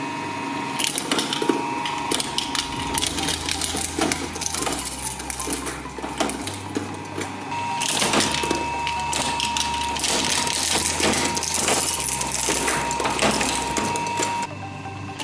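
Twin-shaft shredder's steel cutters crunching a die-cast metal toy car: a dense run of clatter and sharp snaps over a steady whine, easing off near the end as the car is gone.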